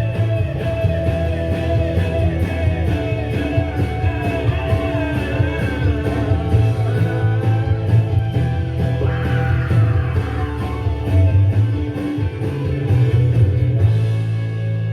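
Rock song with singing and guitar over a steady beat.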